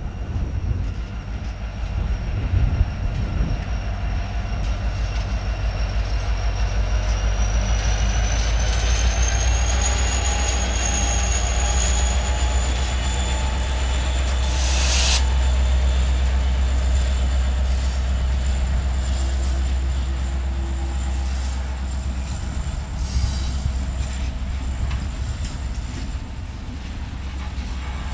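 Union Pacific freight train passing on a curve, led by four diesel-electric locomotives (EMD SD70AH and GE ES44AC/AC44CW): a steady deep engine rumble that swells as the units go by, with a thin high wheel-flange squeal over it. There is a brief loud hiss about halfway through, and the wheels tick over rail joints as the tank cars follow.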